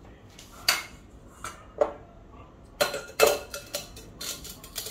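Kitchenware clatter: a metal sieve and utensils knocking and clinking against a glass mixing bowl on the counter. It comes as a string of sharp knocks with short ringing, the loudest a little past the middle.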